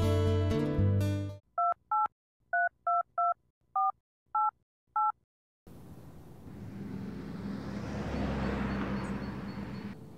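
Smartphone keypad touch-tones: eight short two-note beeps, one for each digit pressed while dialing a phone number, coming in just after guitar music cuts off about a second and a half in. Then a steady rushing background noise that swells and fades.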